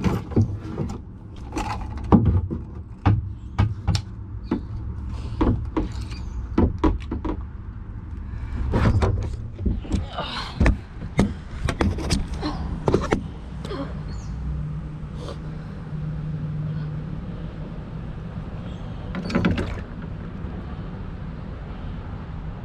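Irregular knocks, clicks and rattles of gear being handled in a kayak, over a low steady rumble. The knocks come thick for the first half and thin out after that.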